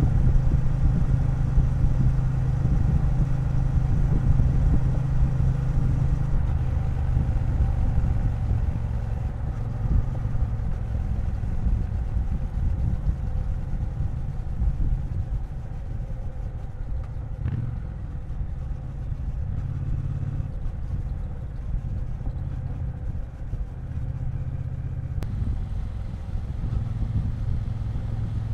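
Triumph Bonneville T120's parallel-twin engine running under way on the road, with little wind noise. The engine note is strongest for the first several seconds, then settles a little lower.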